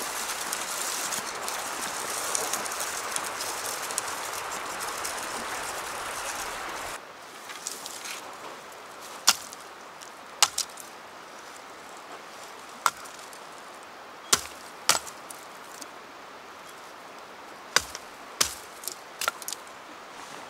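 Steady rushing noise that cuts off abruptly about seven seconds in, followed by irregular sharp knocks of a blade chopping into wood, about a dozen strikes spaced half a second to two seconds apart.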